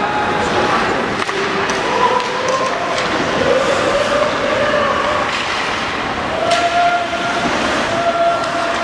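Ice hockey game sound in the rink: a steady wash of noise with scattered voices calling out, strongest near the end, and a few sharp knocks.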